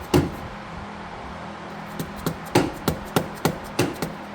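Sharp taps of a hammer driving a screwdriver into the gasket seam of a Harley-Davidson Evolution engine's cam cover to pry it loose: one strike just after the start, then a run of about eight quick taps, roughly three a second, from about two seconds in.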